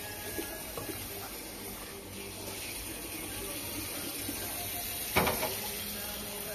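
Kitchen tap water running steadily onto cooked pasta in a stainless-steel colander in a steel sink. A single sharp knock about five seconds in.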